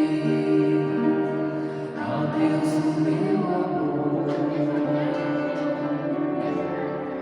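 Music of long held chords that change every second or two.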